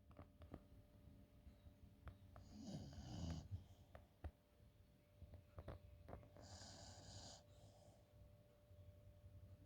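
Faint snoring in sleep: a low rumbling breath about three seconds in and a hissing, raspy breath around seven seconds in, with scattered small clicks between.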